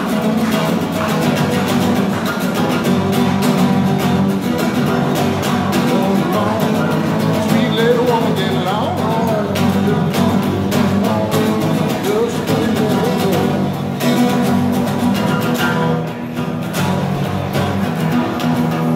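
A guitar being played, with a man's voice singing along for a stretch in the middle.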